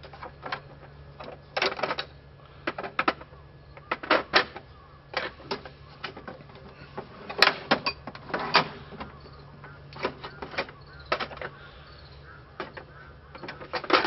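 Metal hand tools being handled and picked up, making irregular light clicks and clinks, with a quick cluster of clinks near the end.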